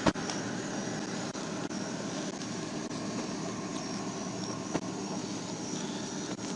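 A steady engine and traffic drone picked up by a police car's microphone, with a sharp click about a second in.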